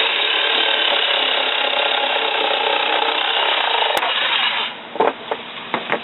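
Electric jigsaw cutting a 45-degree mitre through wood, its blade guided through the slots of a plywood jig. It runs steadily, stops a little over four seconds in, and a few knocks follow.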